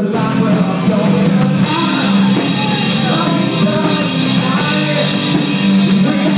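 Live rock band playing loudly, with drums and a male singer's voice over the band.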